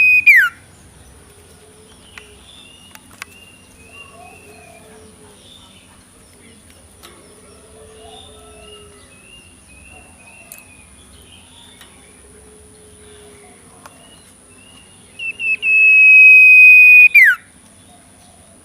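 A loud, high whistle held for about a second, with a few short starts before it and a falling slide at the end. It comes once right at the start and again near the end. In between are faint, soft chirping calls.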